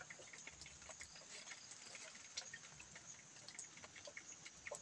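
Faint light rain: scattered drops ticking irregularly, over a steady faint high hiss.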